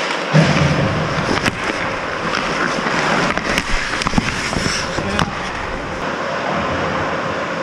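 Ice hockey play heard on the ice: skates scraping, with repeated sharp clacks of sticks and puck.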